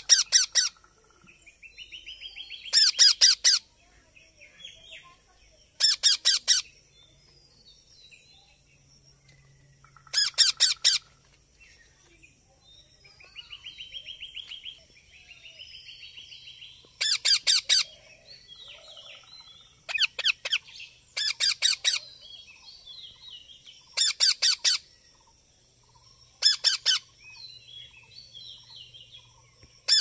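Rose-ringed parakeets (Indian ringnecks) calling, with a young bird begging: loud bursts of rapid, harsh screeches every few seconds, and softer rasping chatter between them.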